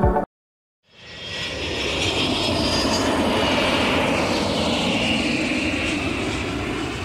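Jet airliner passing overhead. Its rushing engine noise swells in about a second in, a whine falls in pitch as it goes by, and the sound begins to fade near the end.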